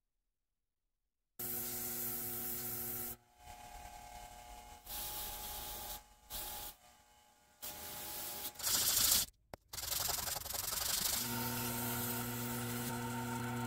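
Electric motor hum of a bench grinder and a Sherline benchtop lathe, with the hiss of abrasive rubbing on small metal parts as they are polished on the spinning wheel and in the turning lathe. It starts about a second and a half in, in several short cuts, and the longest stretch is the lathe running near the end.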